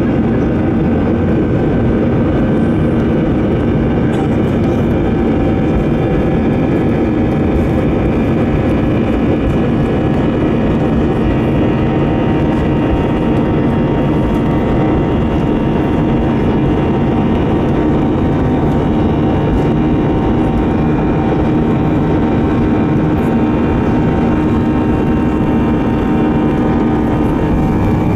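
Airbus A321's CFM jet engines running at steady low thrust, heard from inside the cabin: a dense rumble with several held whining tones. The airliner is taxiing onto and along the runway.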